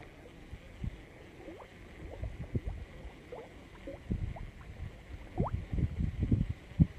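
Shallow lake water sloshing as someone wades through it, with irregular soft low thumps that come more often in the second half.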